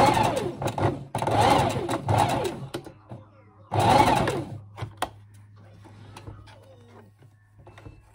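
Electric sewing machine stitching a seam in short runs: it sews, stops just after a second in, sews again for about a second and a half, then gives one last short burst around four seconds in. After that only a low hum and a few faint clicks remain.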